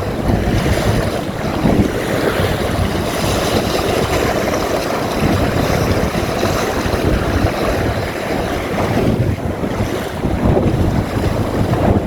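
Strong wind buffeting the microphone over the rush and splash of water along the hull of a small sailboat under way.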